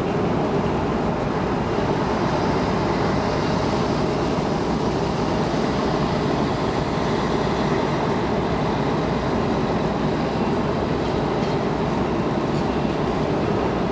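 Steady low rumble and hiss of the cruise ship Balmoral's engines and ventilation as it moves through the harbour.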